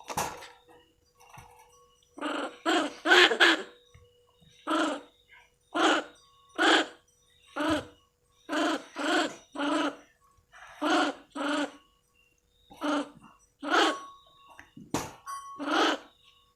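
A monkey giving a string of short calls, about one a second and some in quick pairs, after a sharp click at the start.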